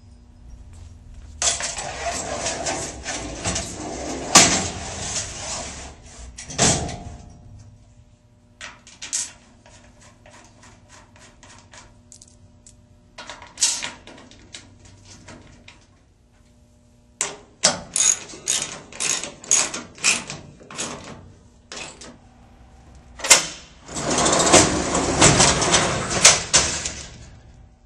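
Load'N'Go long-bed truck drawer rolling in and out on its bearing rails: several long rolling rumbles with sharp metal clunks, and runs of separate clicks and knocks in between.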